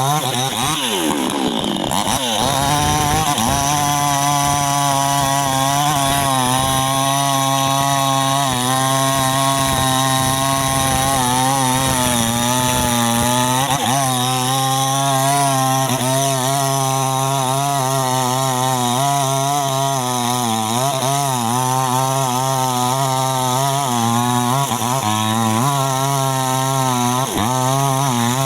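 New West 628 two-stroke chainsaw with a 26-inch bar running at high revs while cutting durian wood. Its pitch wavers throughout and dips briefly a few times as the chain bogs under load.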